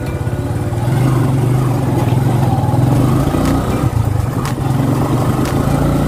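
Kawasaki motorcycle engine of a sidecar tricycle running steadily under way, with a few light knocks from the ride over a rough concrete road.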